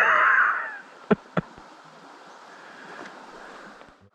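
River water running steadily over the stream bed, with a short loud burst of noise at the start and two sharp clicks about a second in.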